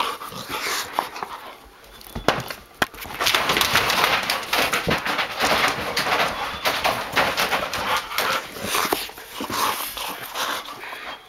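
Golden retrievers playing excitedly right at the microphone: close, noisy breathing and scuffling, with two sharp knocks a couple of seconds in.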